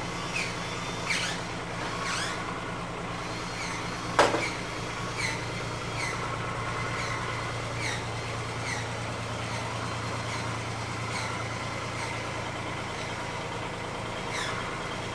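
Kubota U10-3 mini excavator's diesel engine idling steadily, with short high squeaks about once a second and a louder click about four seconds in.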